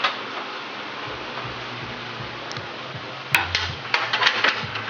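Steady background hiss, then from about three seconds in a quick, irregular run of sharp metallic clicks and clanks: hand tools and hardware being handled while the strut-top nuts are re-bolted.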